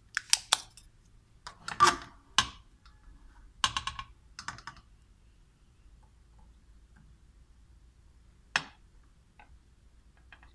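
Spring-loaded desoldering pump (solder sucker) clicking and snapping as it is cocked and fired over a melted solder joint, sucking the molten solder away. The clicks come in clusters over the first five seconds, with one more sharp click near the end.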